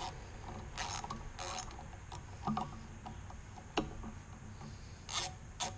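Hand socket ratchet clicking as the 8 mm bolts of a motorcycle's oil filter cover are undone: a few scattered sharp clicks, then a quick run of ratchet clicks starting near the end.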